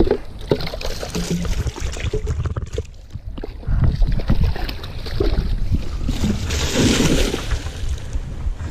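A bucket of water and trout poured into a stream, splashing about two-thirds of the way through. Before that, the plastic bucket and its lid knock and rustle as they are handled.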